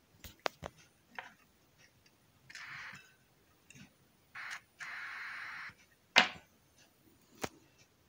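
Loudspeaker hooked through a capacitor to a switch-mode power supply's output: sharp clicks and pops as the lead makes and breaks contact, the loudest about six seconds in. Between them come two short bursts of steady hiss, about half a second and a second long, the supply's output noise played through the speaker.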